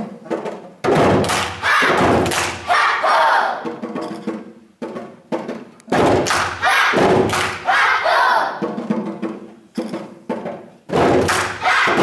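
A group of djembe drums struck by hand together, in repeated phrases of about four seconds each with short breaks between.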